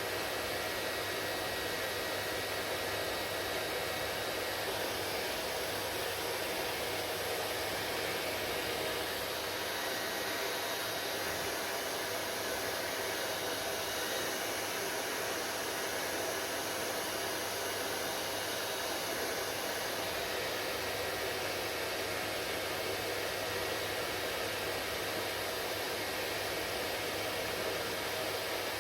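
Hair dryer blowing steadily at a constant speed, an even rushing noise with a faint low hum underneath.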